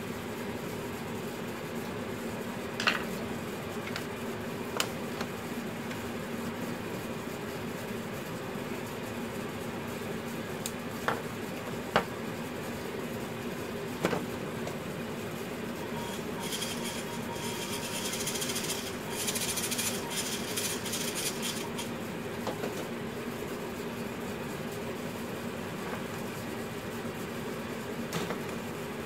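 Scattered light clicks and taps of a small screwdriver and plastic model-truck parts being handled on a workbench, over a steady background hum. About two-thirds of the way through there are several seconds of scratchy hiss.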